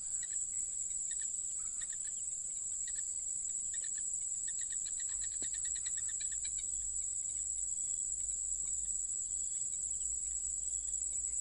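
Steady high-pitched trill of crickets and other night insects. A quick run of lower chirps comes about four to six seconds in.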